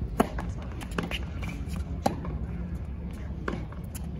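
Tennis rally: a serve struck just after the start, then three more sharp pops of racket on ball over the next few seconds, with fainter ticks between them. The first strike and the one at about two seconds are the loudest.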